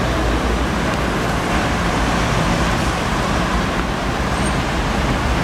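Steady road traffic noise from vehicles passing close by, engines and tyres with a low rumble underneath.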